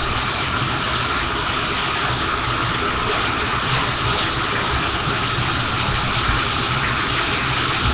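Bathtub tap running, water gushing steadily into the tub as it fills: a constant, really loud rush.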